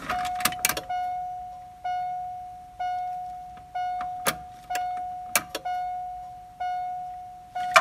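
Subaru Impreza dashboard warning chime sounding a steady electronic ding about once a second, each ding fading before the next, with a few sharp clicks from the ignition key and switches. No fuel pump priming hum is heard: the pump is not priming.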